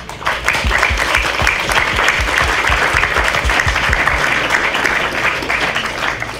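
Audience applauding, with one pair of hands clapping close by.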